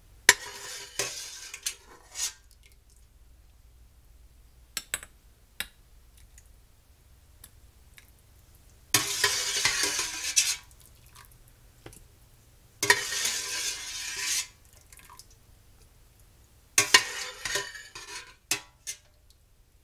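A metal utensil scraping and stirring around the bottom of a stainless steel pot of beef and gravy to get the last chunks of meat out. It comes in several scraping spells of a second or two, with a few sharp metal clicks between them.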